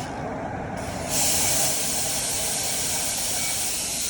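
A loud, steady hiss starts abruptly about a second in and keeps going, over a low background rumble.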